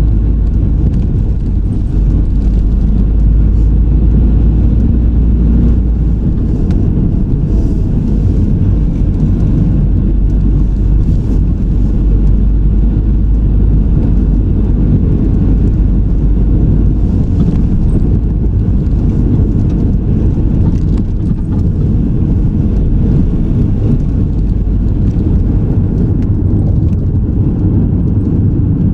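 Steady low rumble of a car being driven, tyre and engine noise heard from inside the vehicle; the deepest part of the rumble eases a little partway through.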